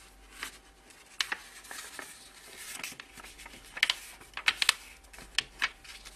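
A sheet of paper being folded and creased by hand into a paper airplane's wing: irregular crisp crinkles and rustles, with a cluster of sharper crackles about four to five seconds in.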